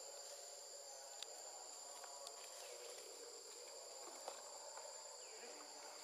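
Faint, steady high-pitched drone of insects calling, two unbroken tones, with a few small ticks about one, two and four seconds in.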